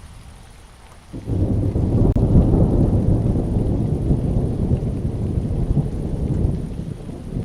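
Thunder breaks in suddenly about a second in and rumbles on, low and loud, over falling rain.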